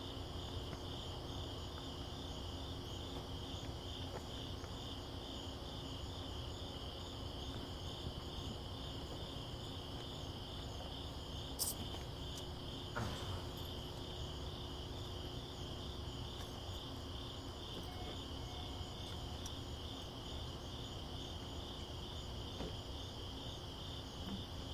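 A steady chorus of insects chirping as a high, evenly pulsing trill, with two faint clicks about halfway through.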